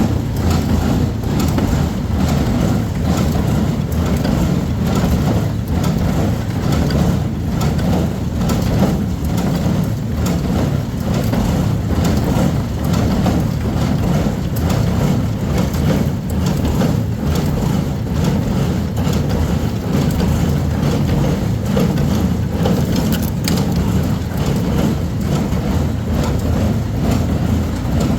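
A CLAAS Constant small square baler running off a tractor's PTO, with the tractor engine running steadily underneath and repeated knocks from the baler's mechanism.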